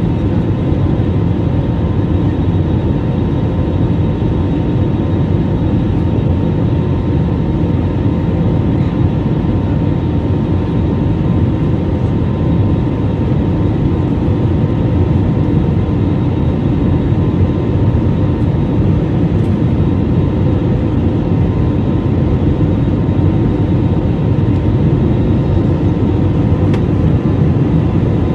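Steady engine and air noise inside the cabin of an Airbus A320 climbing after takeoff, heard from a window seat over the wing. It is a constant low noise with a thin, steady whine above it.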